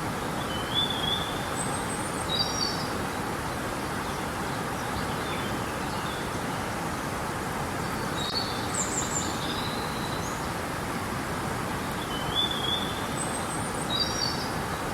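Steady rush of flowing river water, with a songbird giving short high chirping phrases over it several times: near the start, about halfway, and again near the end.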